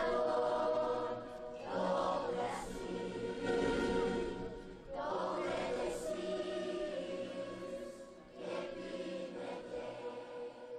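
A children's choir singing a slow song together, phrase by phrase, with brief breaths between the phrases.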